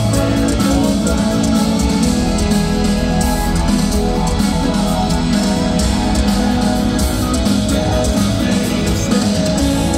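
Rock band playing live, steady and loud, with guitars to the fore.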